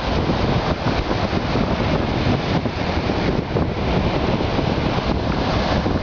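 Wind buffeting the microphone over the steady wash of breaking sea surf.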